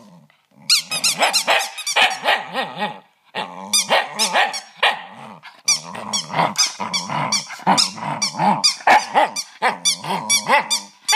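Jack Russell terrier growling while biting and tugging a rubber squeaky toy held in a hand, the toy squeaking rapidly and over and over as it is chewed. There is a brief pause near the start and another about three seconds in.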